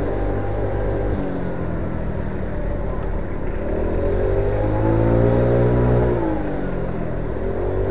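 Motor scooter's engine pulling along, its pitch rising steadily over a few seconds, dropping about six seconds in as the throttle eases, then climbing again near the end, over a steady low rumble.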